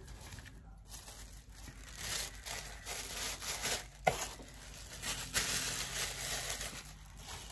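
Tissue paper rustling and crinkling as it is pulled from a box and crumpled in the hands, with one short sharp knock about four seconds in.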